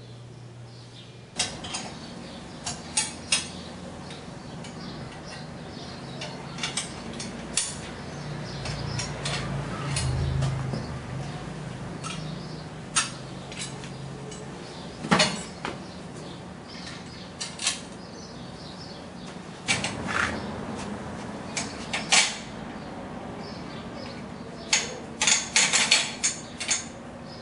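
Metal tubing and a hand tool being handled: irregular sharp clinks and clanks, a cluster of quick ones near the end, over a steady low hum that swells around ten seconds in.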